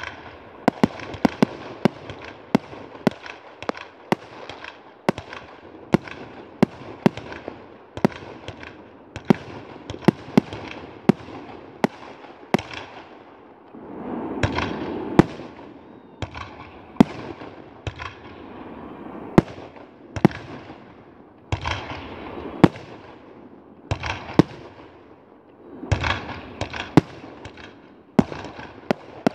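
Fireworks going off in quick succession: a long run of sharp bangs, often one or two a second, over crackling. About halfway through a louder rushing hiss rises as a rocket climbs.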